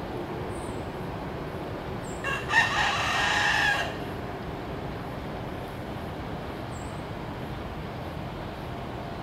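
Rooster crowing once, a single crow of about a second and a half starting about two seconds in.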